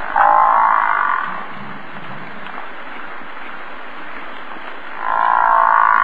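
American bison grunting: two drawn-out, croaky calls, one just after the start and one near the end.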